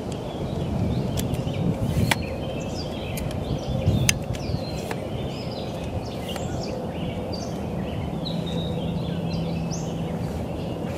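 Many birds singing and calling at once, a busy chorus of short chirps and whistles, over a steady low outdoor rumble. A couple of sharp clicks stand out, about two and four seconds in.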